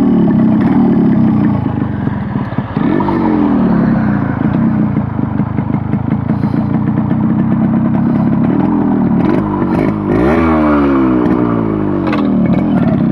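Yamaha RX100's two-stroke single-cylinder engine under way. Its pitch falls and rises with the throttle and gear changes, with a brief dip about two and a half seconds in and another change around ten seconds. The rider takes its running as too rich, drawing too much petrol, and thinks the main jet needs changing.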